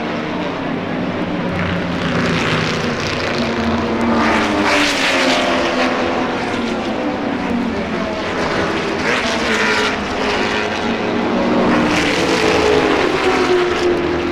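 Sports-racing cars at full speed, a Ferrari-led pack, passing in quick succession. Their engine notes overlap, and each swells and drops in pitch as it goes by. The loudest passes come about five seconds in, about ten seconds in and near the end.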